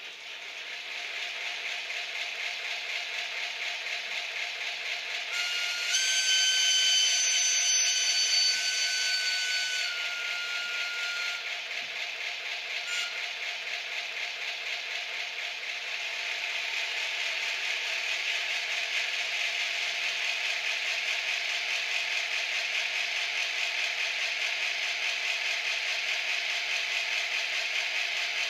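ESU LokSound V4.0 sound decoder in a model SBB Bm 6/6 diesel locomotive, playing its diesel engine running sound through the model's small speaker. A long horn tone sounds for about four seconds early on. From about halfway through, the engine sound grows louder as the locomotive powers up.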